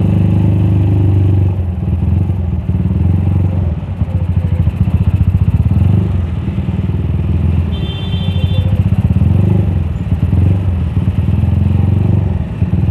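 Suzuki Satria F150 single-cylinder engine, bored up to 200cc, running at low revs while the motorcycle creeps through slow traffic, the revs rising and falling a few times with the throttle.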